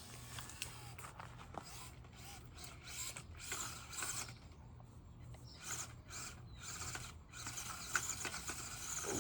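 Small RC crawler's Injora 050 66-turn brushed motor and drivetrain whirring in short, uneven bursts as the throttle is worked, with clicks and scrapes from the tires climbing over the course.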